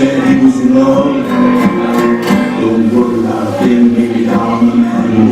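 Live band playing a song: held sung notes over a strummed guitar.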